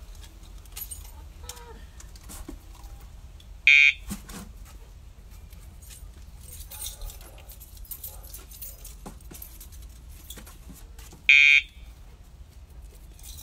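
Dog training collar's pager buzzing twice, each buzz short and loud and about seven seconds apart; the vibration cues the dog what to do rather than correcting him.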